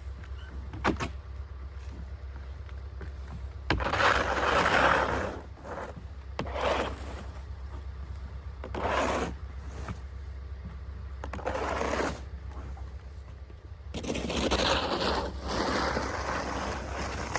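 Snow shovel scraping and pushing snow across a deck in several strokes a few seconds apart, with a couple of sharp knocks early on.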